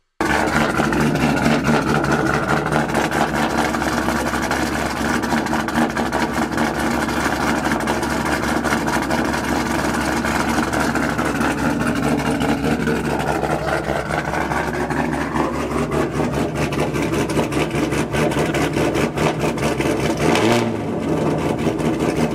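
Chevrolet Camaro V8 idling steadily through freshly installed 1 7/8-inch long-tube headers, with a brief change in its note about twenty seconds in.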